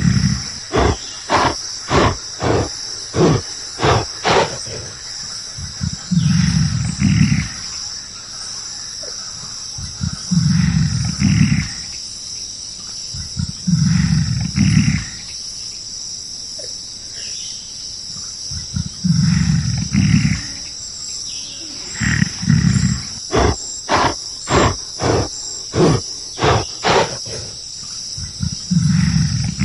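Deep roaring calls of a large wild animal, each lasting about a second or more, with runs of short rhythmic grunts about two a second near the start and again later. A steady high insect drone runs underneath.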